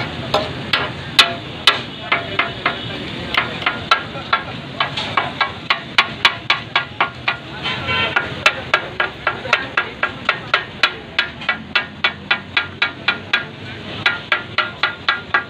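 Two flat steel chopping blades striking a large iron tawa griddle in a fast, even rhythm, about three metallic clacks a second, as food is chopped for kata-kat. This clatter is the tak-a-tak sound the dish is named after.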